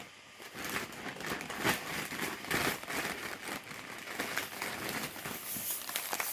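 Small packets of packaging crinkling and crackling irregularly as they are handled and opened.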